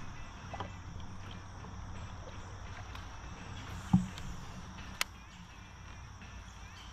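Steady drone of insects such as crickets over a faint background hum, with a single loud knock about four seconds in and a sharp click about a second later.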